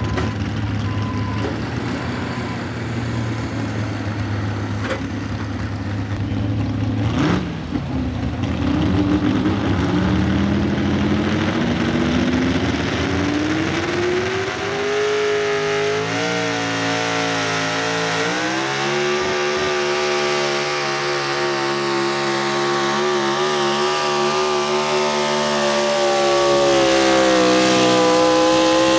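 Pro stock 4x4 pulling truck's big-block V8 running at idle, blipped once about seven seconds in. It then climbs in pitch and steps up twice as it builds revs pulling the sled, and holds at high revs near the end.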